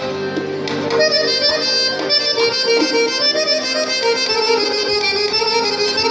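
Instrumental interlude of Khorezm folk music led by an accordion playing sustained melodic lines, with the ensemble accompanying between sung verses.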